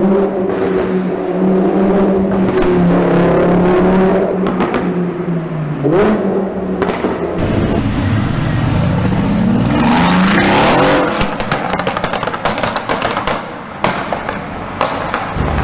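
A Lamborghini's engine running at steady high revs, with a quick blip about six seconds in. Then a Mercedes-AMG GT's twin-turbo V8 accelerates away, its pitch climbing for a few seconds, with a run of sharp exhaust pops and crackles before it falls away.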